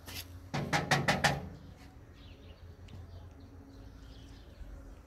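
A quick run of about five drum strokes about half a second in, over a low steady hum.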